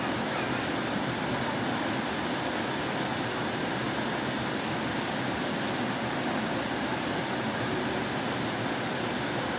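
Flowing water rushing steadily, an even unbroken hiss without splashes or pauses.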